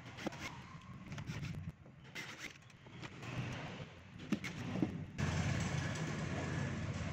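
Faint clicks and taps of hand tools on the plastic cabinet of a powered speaker as its rear amplifier panel is unscrewed and pried loose, over a steady low background rumble that turns suddenly louder about five seconds in.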